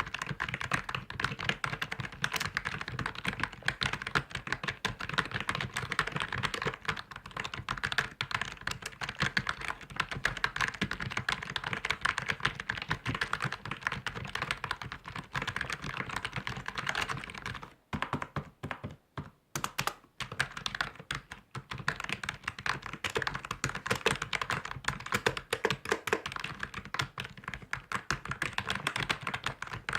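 Computer keyboard being typed on quickly and continuously, a dense run of key clicks that briefly thins to a few scattered taps a little past halfway.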